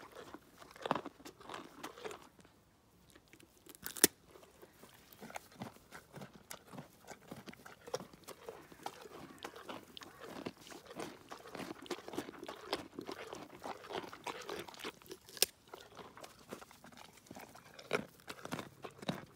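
A pony crunching and chewing carrots close to the microphone: irregular wet crunches and grinding bites, with a sharp loud snap about four seconds in and another near fifteen seconds.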